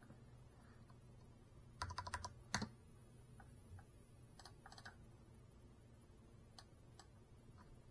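Near silence with a faint low hum, broken by two short runs of quick light clicks, about two seconds in and again around four and a half seconds in, with a few lone ticks near the end.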